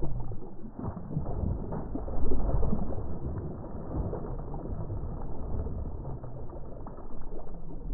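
Slowed-down sound of a hooked bass thrashing and splashing at the water's surface, heard as a deep, muffled rumble with irregular splashes. The loudest surge comes about two seconds in.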